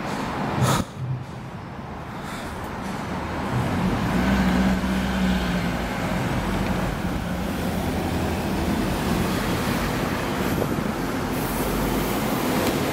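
Diesel bus engine running, growing louder about four seconds in, with a couple of short knocks about a second in.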